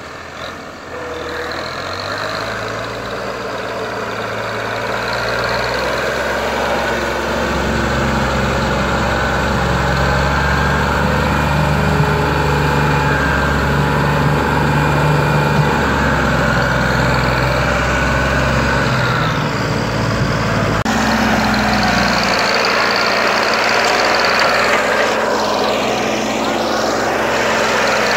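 Ford 4610 tractor's three-cylinder diesel engine running under heavy load, pulling a trolley piled high with wood; the engine grows louder over the first several seconds, then holds steady.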